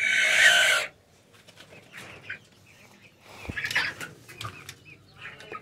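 Chickens in a coop: a loud, harsh squawk in the first second, then quieter scattered clucks and rustling, busier around the middle.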